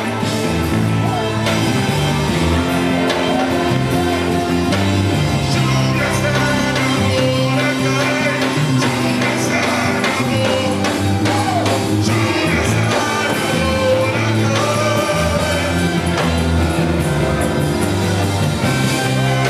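Live church worship band playing a praise song, with keyboards, electric guitars and a trumpet, and voices singing along.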